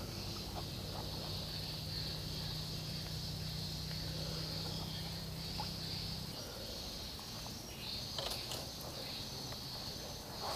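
Steady high-pitched drone of insects in mangrove forest. Under it, a low steady hum cuts off abruptly about six seconds in, and a few faint clicks come near the end.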